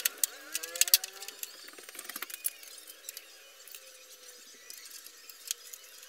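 Clicks and light knocks of parts being handled on a Honda EX5 Dream's front fork and front end while a replacement fork is fitted, busiest in the first two seconds with the loudest knock about a second in, then only a few scattered clicks, and a couple of short squeaks near the start.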